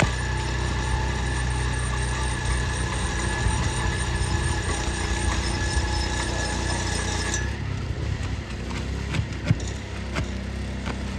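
A motor or engine running steadily, cutting off about seven and a half seconds in, with scattered light knocks and taps.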